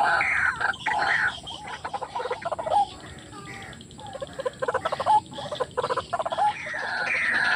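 White-breasted waterhen (ruak-ruak) calling: repeated harsh, falling notes about two a second. These break in the middle into faster, stuttering croaks, and the repeated notes build up again near the end.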